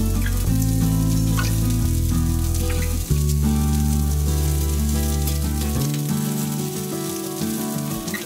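Asparagus, onion, okra and sliced garlic sizzling on a hot steel griddle over a fire. Background music with low sustained notes plays throughout.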